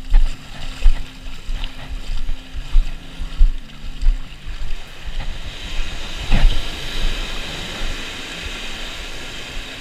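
Wind buffeting the microphone over the wash of surf on a beach, with a louder rush about six seconds in.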